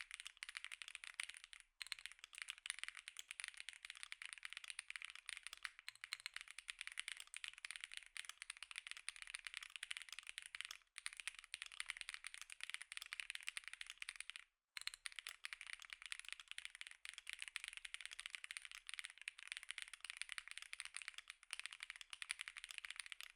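Fast, continuous typing on an Epomaker Tide 65 aluminium mechanical keyboard with its stock Epomaker Lemon linear switches: a dense stream of key clicks, with a few brief pauses.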